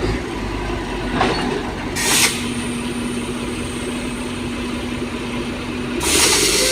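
Heavy diesel machine engine running steadily, with a short hiss about two seconds in and another near the end.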